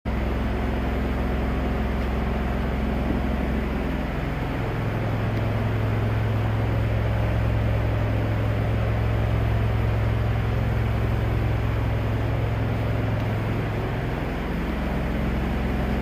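Lincoln Eagle 10000 Plus engine-driven welder-generator running steadily, a loud, even engine drone. Its low hum grows stronger for several seconds in the middle, then eases back.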